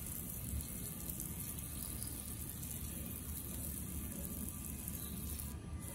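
Water spraying from a hose-end spray wand onto potted succulents, a steady hiss of spray and wash, with quiet background music.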